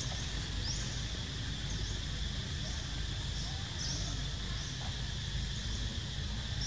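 Steady high-pitched insect drone, with short faint chirps repeating about every second over a low background rumble.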